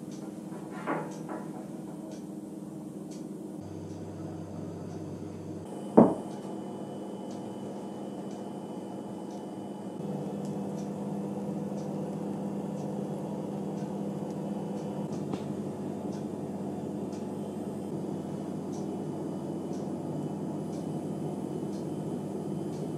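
Steady low mechanical hum, with a light knock about a second in and a sharp knock about six seconds in.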